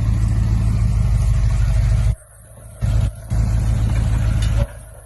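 A vehicle engine running steadily with a low rumble. The sound drops out suddenly three times: about two seconds in, again just after three seconds, and near the end.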